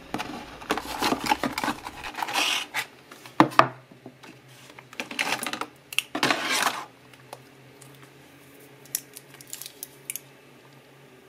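Handling noise from unpacking a laptop battery: a clear plastic packaging tray and cardboard box rustling and clicking in several bursts, with a pair of sharp clicks about three and a half seconds in. A few light ticks follow near the end.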